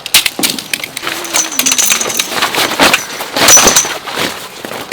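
Camping gear being handled and packed: a loud, busy run of clicks, rattles and clatter.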